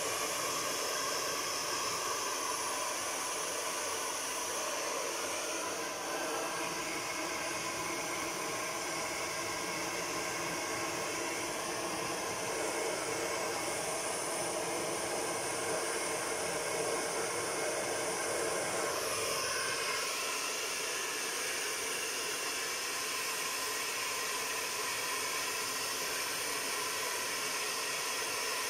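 Handheld hair dryer blowing steadily as it dries a dog's coat, its tone changing slightly about two-thirds of the way through.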